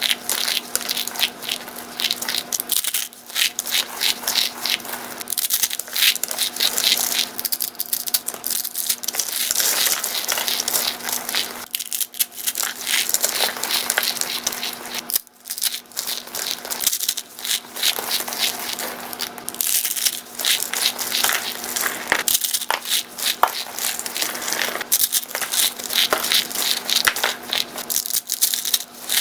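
A dry, brittle block being crushed and crumbled by hand: a dense, continuous run of crackles and crunches with a few brief pauses.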